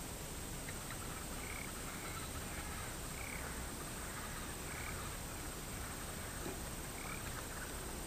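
Short animal calls repeating about every one and a half to two seconds over a steady outdoor background hiss.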